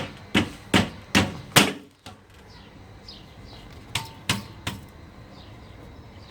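Sharp knocks, five in quick succession about 0.4 s apart, then after a pause of about two seconds three more.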